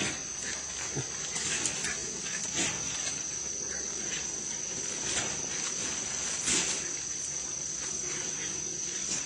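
Steady high-pitched drone of insects, with short, sudden noises from wild boar piglets caught in a wire cage trap coming a few times, the loudest about six and a half seconds in.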